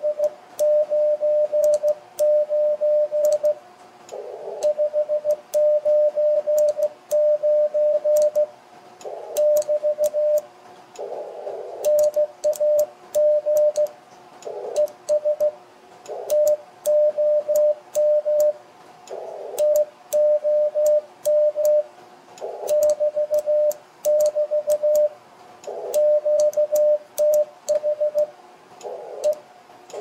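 Morse code sidetone from a ham radio transceiver: one steady tone keyed on and off in dots and dashes as the operator sends by hand key, with a light click from the key at each element. In the longer pauses, receiver hiss briefly returns. The message sent is a CW exchange: RST 599, name Tom, QTH MO, K4SFC DE N9YO BK.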